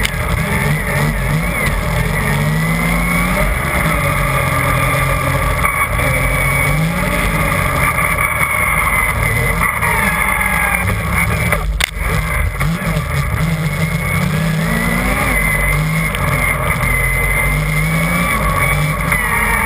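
Yamaha Nytro RTX SE snowmobile's three-cylinder four-stroke engine running hard along a trail, its pitch rising and falling again and again with the throttle over a steady rushing noise. There is a single sharp knock about twelve seconds in.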